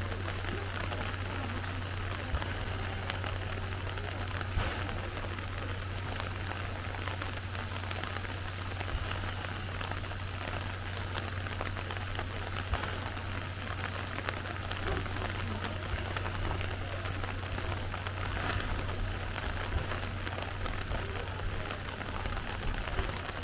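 Steady hiss of rain mixed with steam escaping from a C11 tank steam locomotive, over a steady low hum, with a few light clicks.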